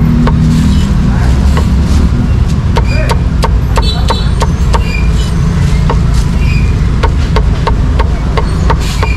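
Meat cleaver chopping pork on a thick round wooden chopping block: a steady series of sharp knocks, about two a second, over a steady low background rumble.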